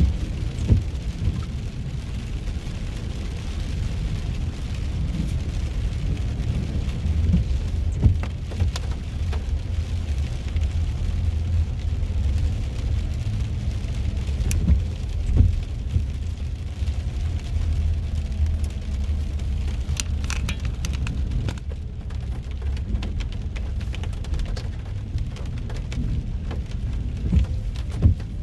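Rain hitting a car's roof and windshield, heard from inside the cabin over a steady low rumble of the engine and road, with scattered sharp taps.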